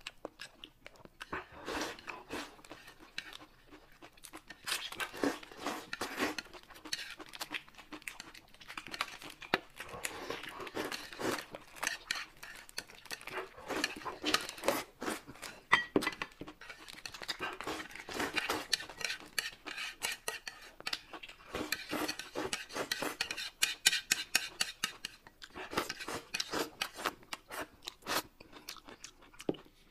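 Close-up eating sounds: chopsticks clicking and scraping against a plate as food is pushed from it into the mouth, with chewing and crunching, in many short irregular bursts.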